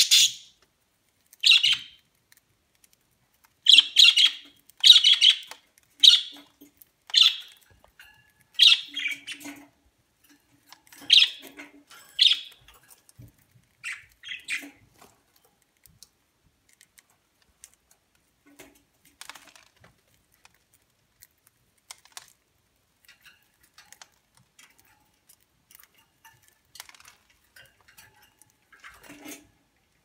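Budgerigars giving short, harsh chirps and squawks, about a dozen over the first fifteen seconds, then only faint scattered ticks.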